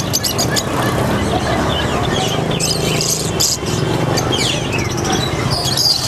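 Many caged songbirds chirping and twittering in quick short calls, over the steady drone of street traffic.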